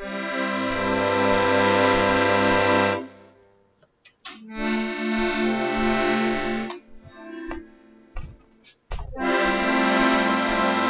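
Accordion played freely in three short phrases with pauses between them, repeated chords over a held low bass note. A few clicks sound in the pauses.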